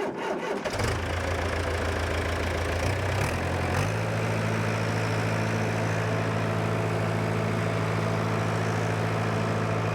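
John Deere 2630 tractor's diesel engine catching just under a second in after cranking, then idling steadily. Its idle speed steps up slightly around four seconds in and holds there.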